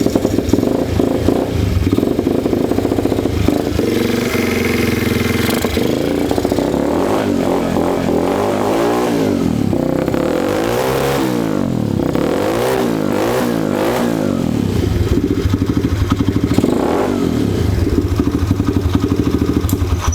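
Mini trail bike's 80 cc engine, just started, running at idle, then revved in a series of quick throttle blips through the middle before settling back to a steady idle. The note comes through a dual exhaust.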